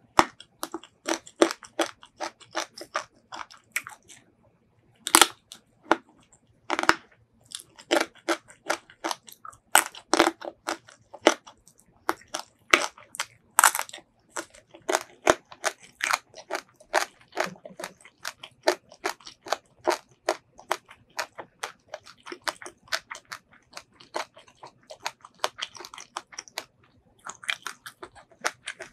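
Close-miked crunchy chewing of crisp raw green vegetables: quick crunches one after another, with a short pause about four seconds in.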